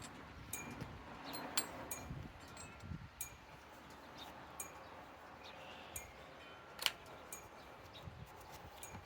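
Quiet, with faint scattered light clinks and brief ringing, chime-like tones, one a little louder about three-quarters of the way through; no drill running.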